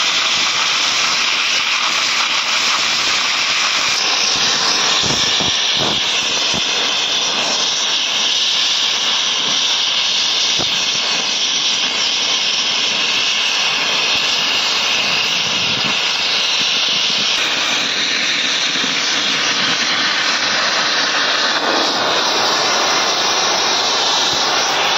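Oxy-fuel gas cutting torch cutting through an iron ingot, its cutting-oxygen jet giving a loud, steady hiss.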